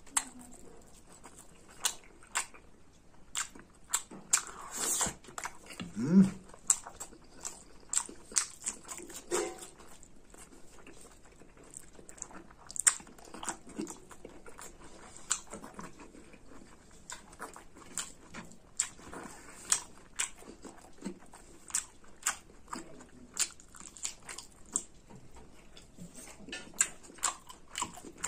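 Close-miked eating: wet chewing and repeated sharp lip smacks as pork curry and rice are eaten by hand, a smack every half second to second. A brief rising sound about six seconds in is the loudest moment.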